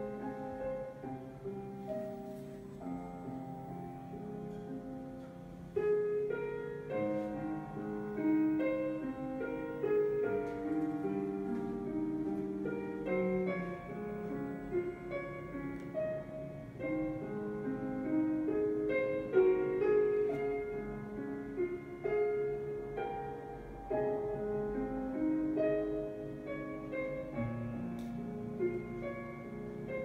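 Instrumental background music carried by piano, a calm melody of held notes.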